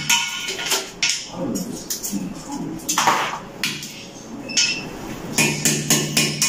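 Metal hand tools chipping and scraping hardened cement off a porcelain toilet: scattered sharp knocks, with a longer scrape about three seconds in. Background music with a steady beat comes back near the end.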